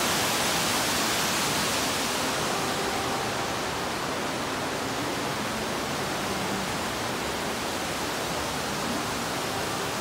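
Steady rush of falling water from an indoor artificial rock waterfall, easing a little about two to three seconds in.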